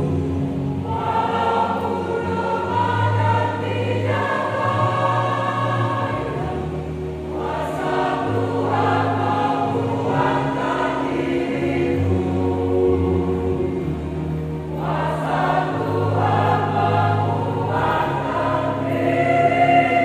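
A choir singing in harmony, in long held phrases with a few short breaks between them, growing louder near the end.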